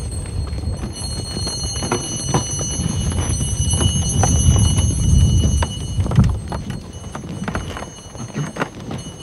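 A horse's hooves clip-clopping irregularly as it pulls a sleigh over snow, over a low rumble that is loudest a little past the middle.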